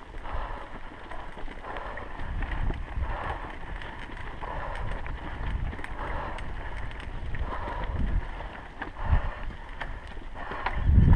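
Mountain bike ridden over a rocky dirt trail: tyres crunching on loose stones and the bike rattling, with heavier knocks about nine seconds in and near the end, the last the loudest.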